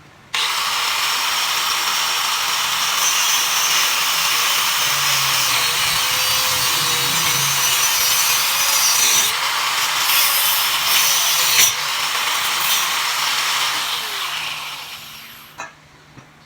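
A power tool running against the work for about fifteen seconds, a steady rasping noise that starts abruptly and fades away near the end.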